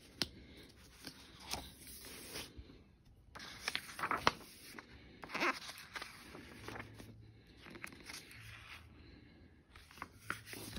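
Pages of a hardcover picture book being opened and turned: faint paper rustling with a few soft clicks and taps of handling.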